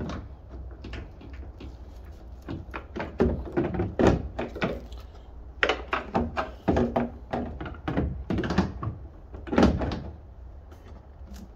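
Hard plastic knocks, clicks and thunks, irregular and repeated, as an RXC LED taillight housing is handled, pushed and seated into a Ford F-150's taillight pocket; a few louder thunks stand out about 4, 6, 8 and 10 seconds in.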